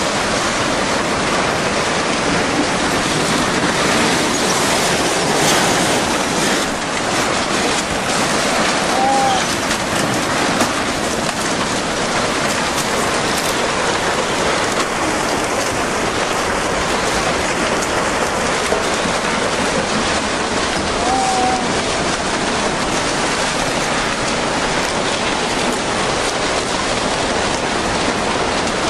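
Tsunami surge sweeping through a town: a steady, loud rush of water and debris.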